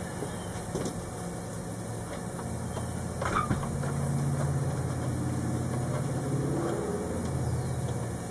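A steady low machine hum, like a small motor running, that swells about two seconds in and eases off near the end, with a couple of short clicks from handling in the wiring.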